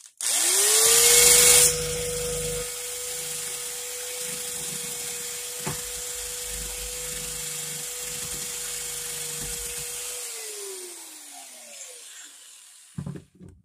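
A small high-speed electric power tool spins up to a steady whine and grinds hard against the rusty steel of a claw hammer head for about a second and a half with a loud hiss. It runs on more lightly for about eight seconds, with one short tick partway through, then winds down with a falling whine.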